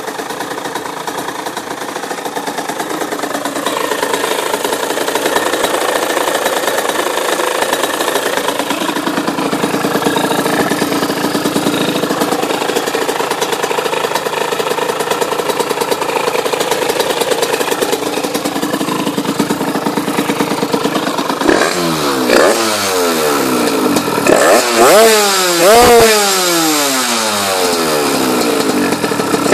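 Minarelli AM6 two-stroke engine of a Malaguti XSM, tuned with a TPR 86 cylinder kit, a 28 mm Polini PWK carburettor and an SCR exhaust, idling steadily. Near the end it is revved in several short, sharp blips, the revs shooting up and dropping back each time.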